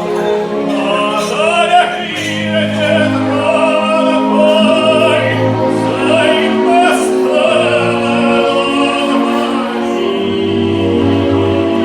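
Music with operatic singing: a voice holding long notes with vibrato over a sustained accompaniment.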